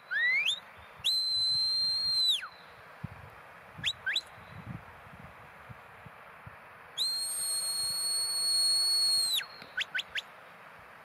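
Handler's whistle commands to a working sheepdog. First a rising whistle, then a long held note that drops away at its end, two short upward flicks, a second long held note that drops at its end, and three quick rising flicks.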